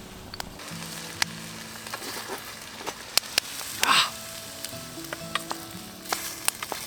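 Vegetables and sausage sizzling in a Swiss Army cook-set pan over a wood-fired hobo stove, with a steady hiss and sharp spits and crackles throughout. The hiss swells briefly about four seconds in.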